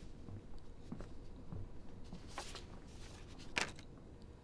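Quiet room tone with two short, soft rustles or clicks, about two and a half and three and a half seconds in; the second is the louder.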